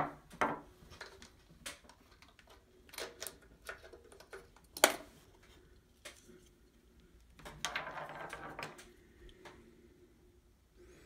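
Small parts and tools being handled on a bench: scattered plastic and metal clicks and knocks, a sharp click about five seconds in, and a second of rustling handling noise a few seconds later.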